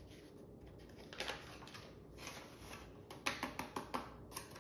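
A packet of powdered biscuit mix rustling as the powder is shaken out into a bowl, with a quick run of light taps about three seconds in.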